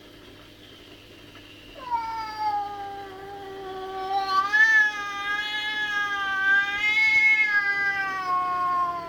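A black domestic cat's angry caterwaul: one long yowl that starts about two seconds in and is held without a break, wavering up and down in pitch. It is the territorial yowl of a cat whose space is being intruded on.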